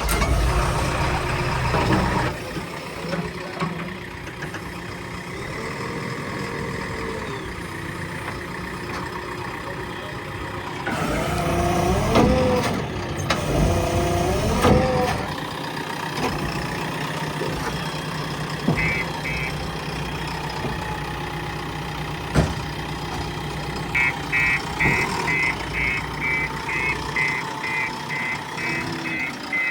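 Diesel engine of a heavy vehicle running, louder for a few seconds about halfway through. A reversing alarm beeps repeatedly through the last several seconds.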